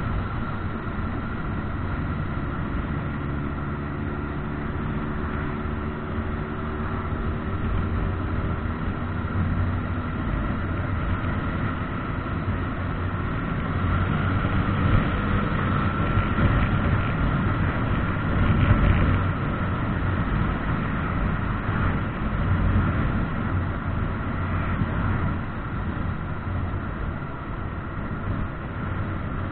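Motorcycle engine running steadily at road speed, heard from a camera mounted on the bike, mixed with wind and road noise. The engine note shifts a little in pitch a few seconds in, then holds steady.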